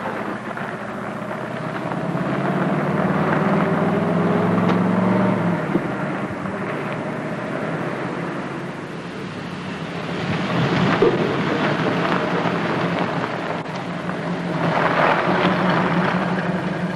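An open Jeep's engine running as it drives along a road. It climbs in pitch over the first few seconds, eases off about five seconds in, and then runs steadily.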